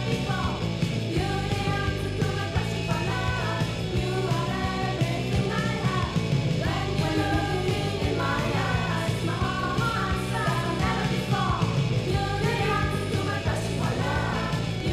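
Noise-pop rock record: a woman singing lead over electric guitar, bass and drums, with a steady beat.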